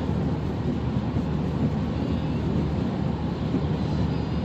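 Car driving at speed on a motorway: steady road and engine noise.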